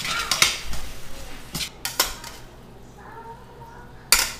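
Metal tongs clinking and scraping against a stainless steel skillet as sautéed greens are served out of the pan, with a fading sizzle at first. A sharp clank near the end.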